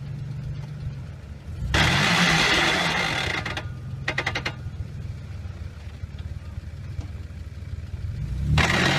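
4x4 SUV's engine running low under load, then revved hard about two seconds in with a loud rush of noise from the tyres scrabbling on dirt and rock as it tries to climb a steep ledge. It settles back to a low labouring run and is revved hard again near the end.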